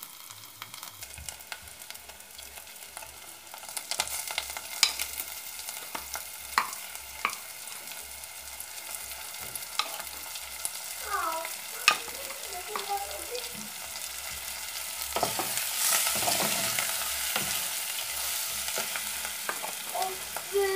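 Food sizzling and frying in a pan while it is stirred, a spoon clicking and scraping against the pan now and then. The sizzle grows louder about three-quarters of the way through.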